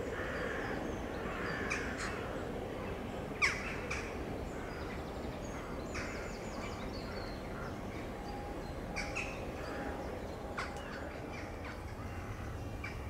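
Birds calling with scattered short calls, one sharp falling call about three and a half seconds in, over a steady low rumble.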